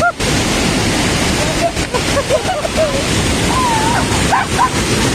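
Steady roar of a waterfall's falling water, with distant voices faintly calling over it.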